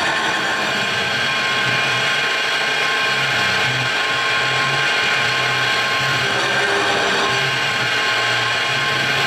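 CNC-converted Precision Matthews benchtop mill machining aluminium angle with an end mill: steady spindle and cutting noise with a constant whine, and a low hum that comes and goes in short stretches as the machine moves.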